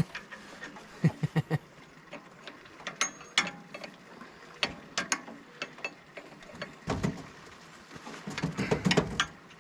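Metal hand tools clicking and clinking on hydraulic hose fittings, with a low knock about seven seconds in and a quick run of clanks near the end, as the hoses at a mini excavator's control valve are being loosened and swapped to change the control pattern to SAE.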